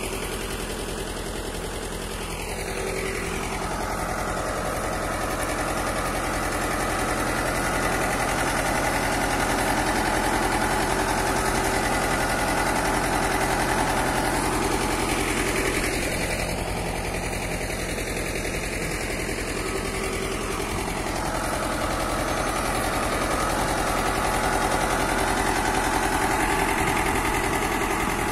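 Farm tractor engine running steadily under load as it pulls a sweet potato lifter through the soil, with a fast, even knocking beat.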